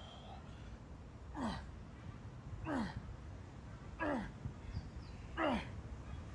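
A man's forceful exhales, each with a short grunt falling in pitch, four times in an even rhythm about every second and a half, like effort breaths during exercise repetitions.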